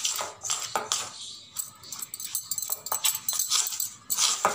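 Metal spoon scraping and clinking against a stainless steel bowl in quick, irregular strokes, stirring a thick mix of roasted gram flour and spices.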